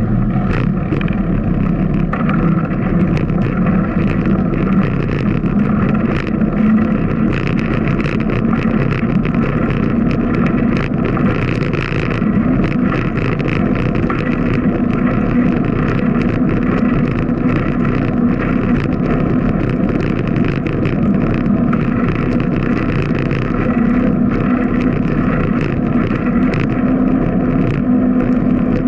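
Wind buffeting the bicycle-mounted camera's microphone, mixed with tyre noise on a concrete alley, as a bicycle rolls off from a stop and cruises at about 13 mph. The noise is loud and steady, with a low hum and frequent small knocks and rattles over bumps.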